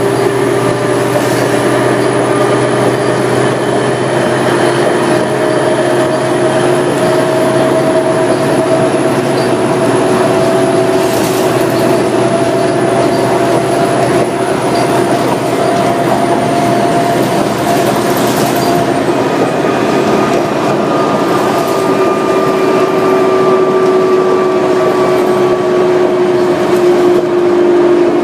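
New Flyer D40LF diesel city bus heard from inside the cabin while travelling at speed: steady engine, drivetrain and road noise, with a few whining tones that drift slowly up and down in pitch.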